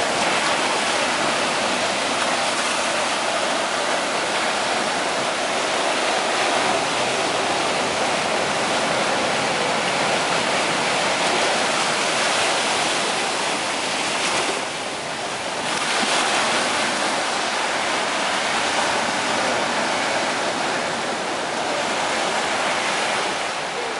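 Ocean surf breaking and washing up a sandy beach: a steady rushing hiss that eases briefly about fifteen seconds in.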